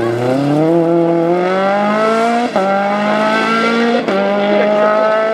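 Rally car engine accelerating hard out of a corner. The revs climb steadily and drop sharply at two upshifts, about two and a half and four seconds in, then climb again.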